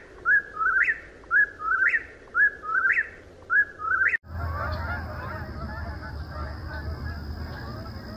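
An eastern whip-poor-will singing, its whistled phrase repeated about once a second, four times. It cuts off suddenly about four seconds in, and a flock of geese in flight takes over, honking continuously.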